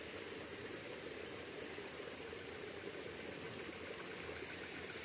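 Shallow stream water running, a steady faint trickle.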